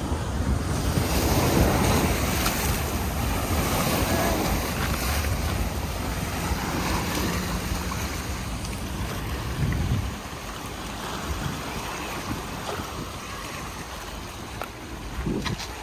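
Wind buffeting the microphone over the wash of waves on the shore, heavier for the first ten seconds and then easing, with a few sharp clicks near the end.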